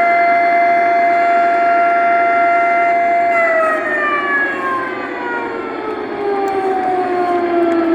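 Lionel air raid siren tender's onboard speaker playing a civil-defense siren effect: a steady wail held for about three seconds, then winding down in a long, falling pitch, over a steady low noise.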